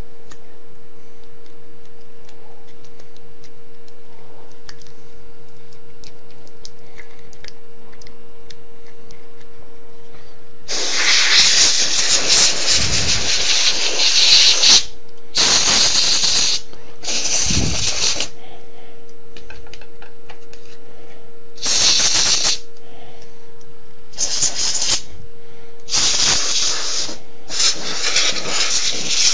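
Compressed-air duster blowing dust off an electronic button-and-screen panel. After about ten seconds of faint handling clicks comes one long hissing blast of about four seconds, then a string of shorter blasts.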